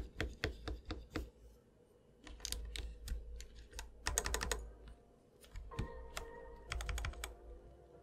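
XDA keycaps being pressed down onto a mechanical keyboard's red-stem switches: sharp plastic clacks, some single and some in quick clusters of several.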